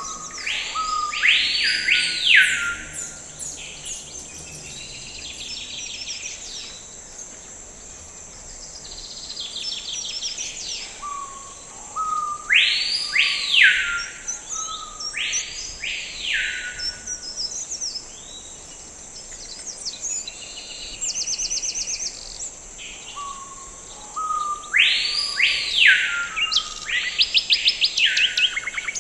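Forest ambience: a bird sings the same phrase of loud swooping whistled notes ending in quick trills, about every twelve seconds, three times. Under it runs a steady high-pitched insect drone.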